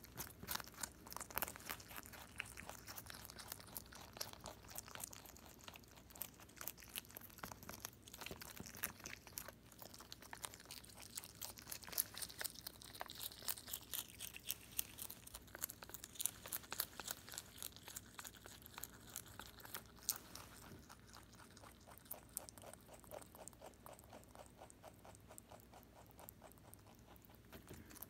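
Holland Lop rabbit chewing a cabbage leaf: rapid crisp crunching, quieter and sparser in the last several seconds.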